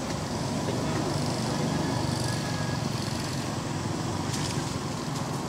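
Steady low rumble of outdoor background noise, with a few faint short high tones about two seconds in.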